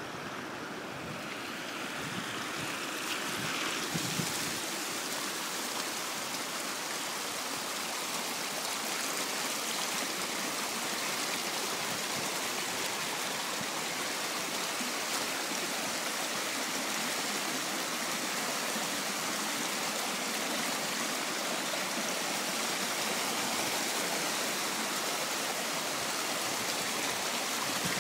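Heavy rainwater runoff rushing down a steep tarmac lane like a stream in flood, a steady rushing of water. It grows a little louder over the first few seconds, then holds steady.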